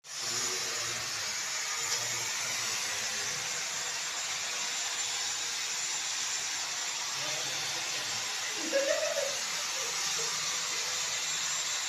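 Steady hiss of rushing air at a constant level, like a blower or air tool running, with a brief faint voice about nine seconds in.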